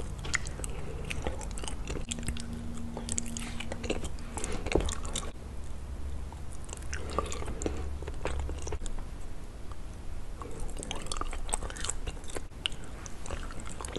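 Soft, sticky bites and chewing of mochi close to the microphone, with many small wet mouth clicks and smacks.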